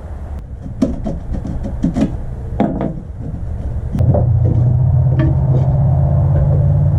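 A series of knocks and scrapes, then a loud steady low rumble that starts about four seconds in.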